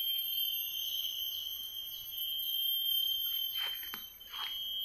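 Insects buzzing in a steady, unbroken high tone, with a fainter higher tone above it; a couple of brief soft sounds come near the end.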